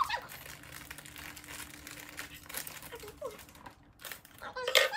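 Plastic chip bag (Amica chips) crinkling and crackling as it is squeezed and pulled open, with a louder crackle near the end.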